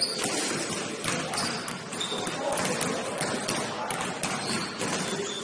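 Basketball game in play in a gym: sneakers squeaking on the court, the ball bouncing and thudding, and players' voices in the background.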